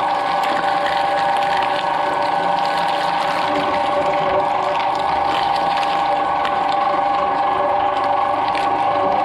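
Twin-shaft shredder running with a steady, loud whine from its drive, its toothed cutter shafts chewing through green papaya with scattered crunches and crackles.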